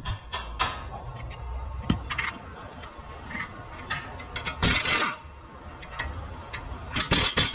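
Scattered metallic clicks and clinks of tools working on a car's front suspension. There is a half-second burst of a pneumatic tool's hiss a little past halfway, and another short burst near the end.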